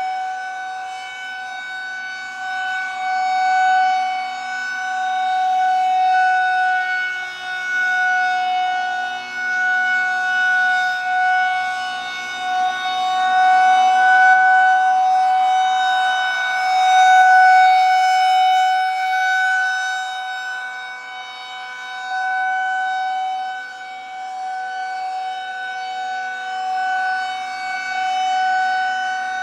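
Federal Signal 2001-130 rotating outdoor warning siren sounding a steady, unwavering tone for a tornado drill, the sound swelling and fading slowly as the horn turns.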